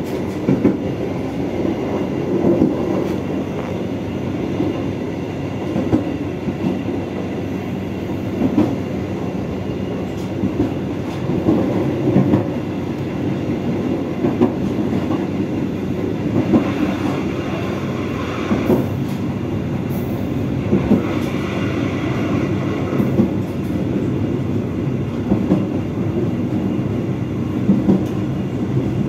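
Passenger train running along the track, heard from the rear end of the last coach: a steady rumble of wheels on rail, with a sharp clack every second or two as the wheels cross rail joints.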